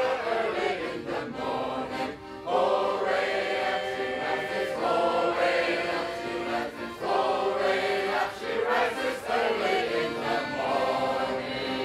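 A choir of men and women crew members singing a rousing sea shanty in chorus, with two brief pauses between phrases.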